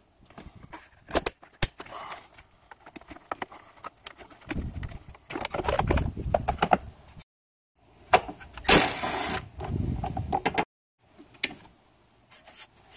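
Hand tools and plastic intake parts being worked in a car's engine bay: sharp clicks, knocks and rustling as pliers squeeze a clip and a screwdriver pries at the air intake duct, with a loud hissing burst lasting under a second about nine seconds in. The sound cuts out completely twice.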